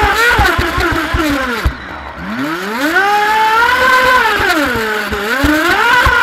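Feilun FT011 RC racing boat's brushless electric motor whining. Its pitch falls steeply as the throttle is backed off about two seconds in, then climbs again, dips once more and rises near the end. Short low knocks of water slapping the hull run beneath the whine.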